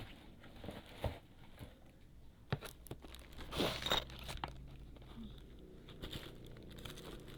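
Parcel packaging being handled and opened: crinkling and tearing, with a few sharp knocks and a louder crinkling burst about three and a half seconds in.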